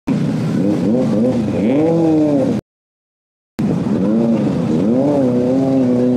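Kawasaki ZX-25R's 250 cc inline-four engine revved in repeated throttle blips, its pitch rising and falling; the sound drops out for about a second partway through, then the engine settles to a steady held note near the end.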